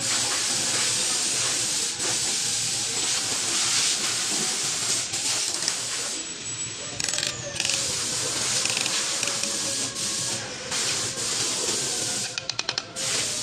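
A steady hiss, with a quick run of ratchet-wrench clicks near the end as a piston ring compressor is tightened around a piston.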